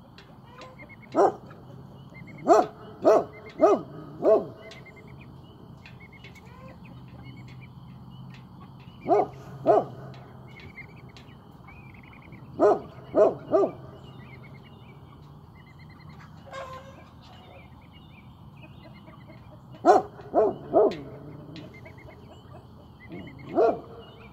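Great Pyrenees alert-barking as a livestock guardian on watch: single loud barks in runs of two to five, with pauses of several seconds between the runs. Birds chirp faintly in the background.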